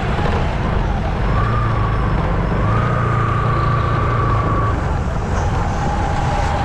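Street traffic noise: vehicle engines running in a steady, dense rumble, with a held steady tone standing out for about three seconds in the middle.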